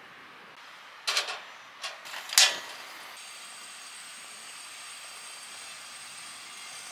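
A heavy rock salt plate knocking and scraping against a wire grill grate, three sharp knocks within about a second and a half, the last the loudest. About three seconds in, a steady hiss from the lit grill takes over.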